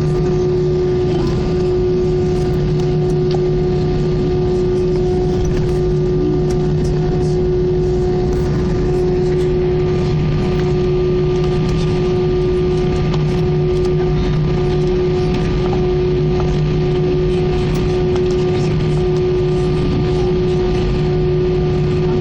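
Cabin noise of an Airbus A319 taxiing, heard from a window seat over the wing: the jet engines and cabin air make a steady drone with an even hum at several fixed pitches, unchanged throughout.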